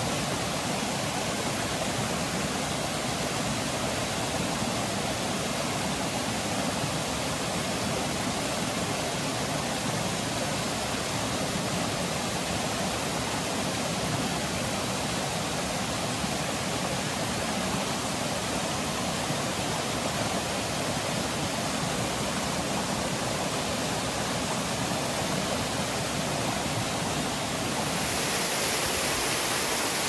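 Small mountain waterfall and cascade pouring into a rocky stream pool: a steady rush of falling and splashing water. Near the end it turns brighter and a little louder as a second, larger waterfall, 雄滝 (the 'male falls'), takes over.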